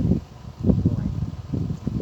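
Wind buffeting the microphone outdoors, irregular low rumbling gusts that swell and drop every half second or so.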